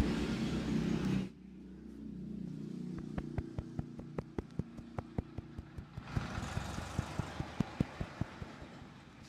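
A barber's hands tapping and slapping rhythmically in a head massage: a run of sharp, even taps, about three a second, from about three seconds in until near the end, over steady street noise with a low hum.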